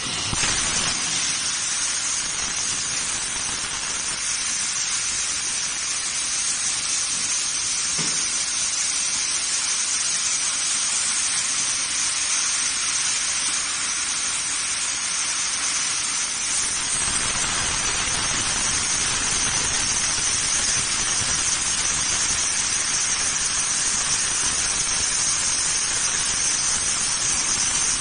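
HSG 4 kW fiber laser cutting 12 mm stainless steel plate: a steady hiss of the assist-gas jet through the cutting nozzle as the beam cuts. About two-thirds of the way in, the hiss grows fuller with a deeper rush underneath.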